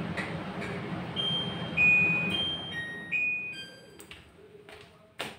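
A short melody of clear, bell-like electronic notes at several pitches over a steady hum that fades away, followed by a few sharp clicks and a knock near the end.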